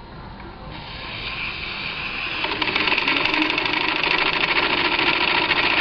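Small steam engine of a live-steam model crane picking up speed, driving the winch to lower the load. It grows louder from about a second in and runs fast and steady from about two and a half seconds.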